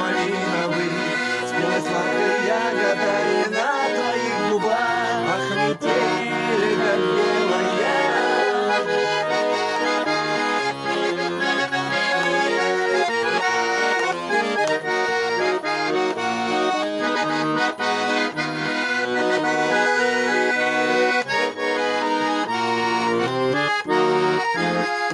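Accordion playing an instrumental passage of a Russian pop song, full chords with a moving melody line on top.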